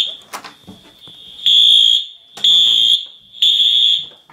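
Building fire alarm horn sounding the temporal-three evacuation pattern: a pause, then three high-pitched blasts about a second apart starting about a second and a half in. The alarm was set off at a manual pull station.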